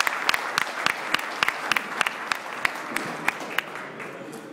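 Audience applauding, the clapping thinning out and dying away about three and a half seconds in.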